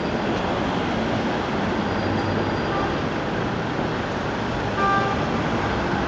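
Steady city traffic noise, an even rumble and hiss of passing road vehicles, with a brief high tone about five seconds in.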